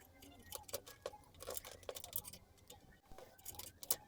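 Light clicks, taps and scrapes as a motherboard is handled and set down into a computer case's tray.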